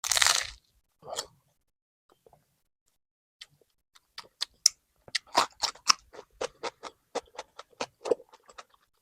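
Bites into a crusty Vietnamese bánh mì baguette, close-miked: a loud bite at the start and a smaller one about a second in, then chewing from about four seconds in, with sharp crackling strokes about three times a second.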